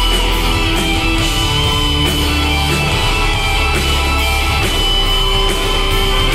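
Live progressive rock band playing, with electric guitars, bass and drums, heard through a phone recording from the audience.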